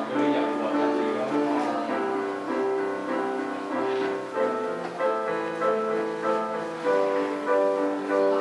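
Instrumental music: a melody of short held notes over an accompaniment.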